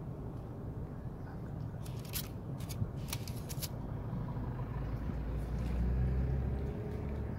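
Cat crunching dry kibble off a sheet of aluminium foil, a quick run of sharp crunchy clicks about two to four seconds in. Underneath, a steady low rumble swells between about five and seven seconds in.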